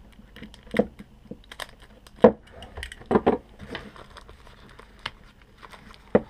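A clear plastic packaging bag being handled and pulled open by hand, giving irregular crinkles and sharp clicks, the loudest a little after two seconds and again around three seconds.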